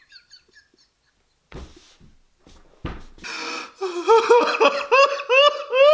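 A man laughing hard. After a near-quiet start come a couple of breathy snorts, then from about four seconds in a high-pitched, wheezing laugh in quick repeated pulses.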